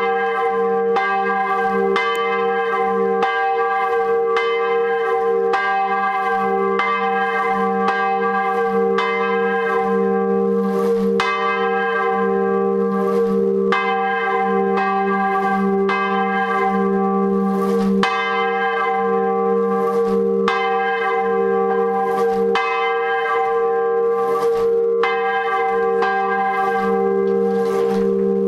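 Swinging bronze church bell on a retrograde (counterbalanced) mounting, swung by hand, its clapper striking in a steady rhythm about once a second. Each stroke rings on into the next over a strong, constant low hum. The regular strokes show the bell is swinging high enough for even ringing.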